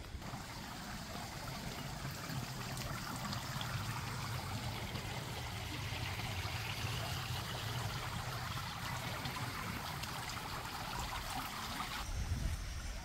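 Steady trickle of running pool water, with a low steady hum beneath it.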